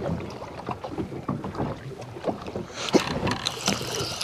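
Water lapping and slapping against the hull of a small fishing boat, with light irregular knocks.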